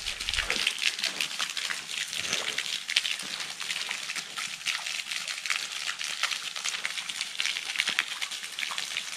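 Steady splashing and trickling of a small fountain jet falling into a stone basin of water, mixed with the fine crackling patter of rain.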